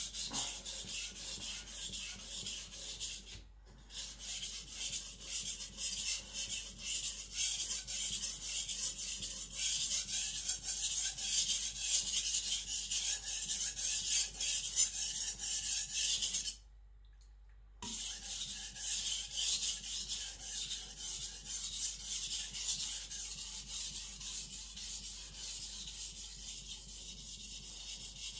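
Aogami steel gyuto blade stroked back and forth on a wet water stone: a continuous scraping rasp in quick repeated strokes, stopping briefly about three and a half seconds in and again for about a second past the middle. The edge is being worked up to a strong burr.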